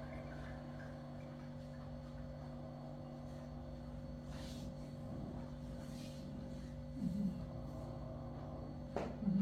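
Quiet room tone with a steady electrical hum, broken by a brief low sound about seven seconds in and a sharp click near the end.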